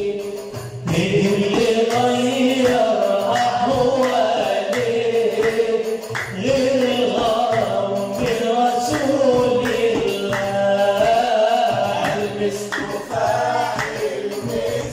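Male voice singing an Islamic devotional song in praise of the Prophet (madih/inshad) in long, bending melodic lines, with other men's voices joining in. A hand-held frame drum beats along.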